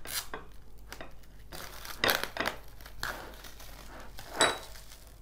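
Raw chicken pieces handled in a bowl, giving soft rustling and light knocks. About four seconds in, a small glass bowl of ginger-garlic paste gives a single short, ringing clink against the dish.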